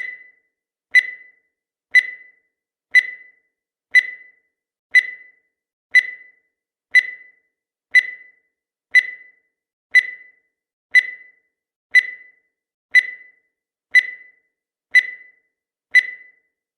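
Countdown timer sound effect: a short, high electronic beep once every second, evenly spaced, each one dying away quickly.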